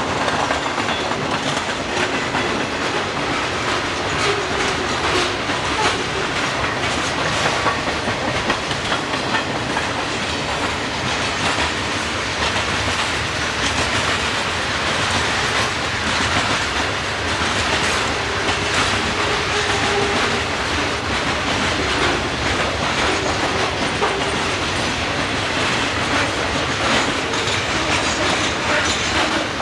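A long freight train's cars rolling past, their wheels clicking steadily over rail joints and switch points.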